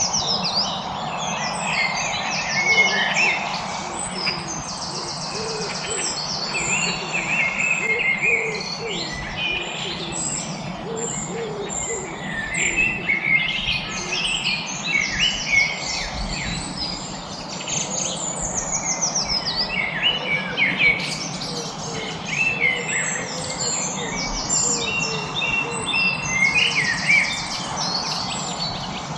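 A chorus of many songbirds singing at once: overlapping high chirps, quick trills and rapid repeated notes, with a few lower calls, over a steady background hiss.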